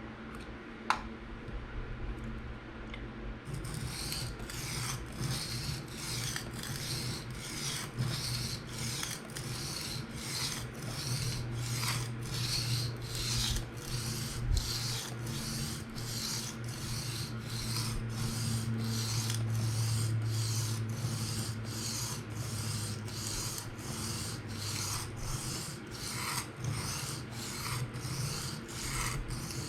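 A PM60 steel knife blade stroked freehand across an Atoma 600 grit diamond plate: even rasping passes, about one and a half a second, beginning about three and a half seconds in after a few light clicks. These are edge-leading forward passes at around 16 degrees, working up a burr.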